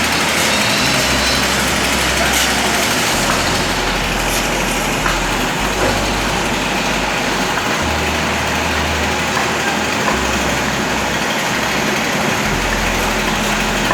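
A heavy engine running steadily, with dense mechanical noise throughout.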